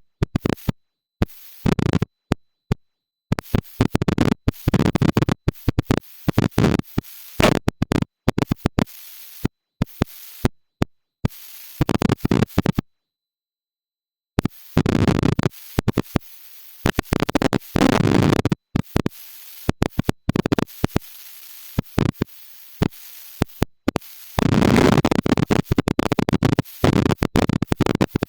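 Stihl MS 170 chainsaw being started: irregular bursts of scratchy noise, some brief and some lasting a few seconds, broken by sudden dropouts to silence.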